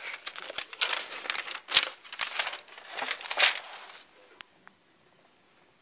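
Paper rustling and crinkling as the pages of a spiral notebook are handled and turned, with a few light taps, stopping about four seconds in.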